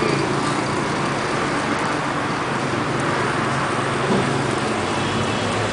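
Steady road-traffic noise, with a low engine drone that fades out after about two seconds.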